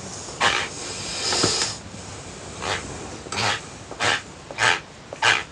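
Teeth grinding (bruxism): a run of short rasping grinds, about one every two-thirds of a second, with a longer hissing stretch about a second in.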